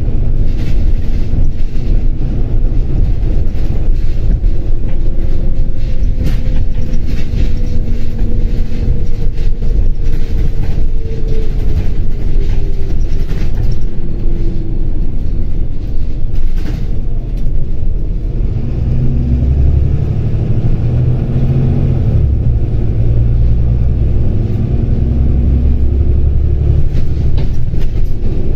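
Volvo B9TL double-decker bus heard from inside the passenger saloon on the move. Its diesel engine and road noise make a steady rumble with interior rattles. A whine falls in pitch through the first half, and a deeper, heavier engine note sets in about two thirds of the way through as the bus pulls on.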